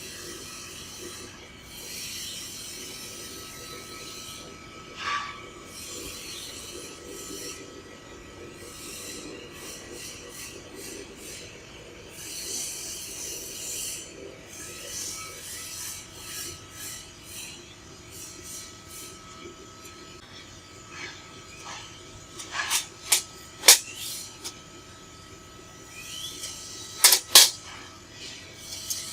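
JFY EFC3015 fiber laser cutting machine cutting 2 mm aluminium sheet: a steady hiss with faint steady tones running underneath, and a handful of sharp clicks in the last quarter.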